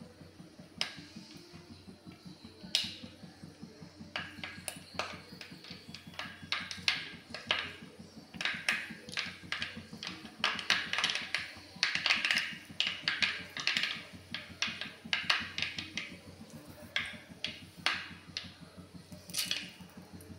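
Seasoning popping and crackling in hot oil in a clay pot: scattered sharp pops that thicken into a rapid crackle in the middle and thin out toward the end, over a low steady hum.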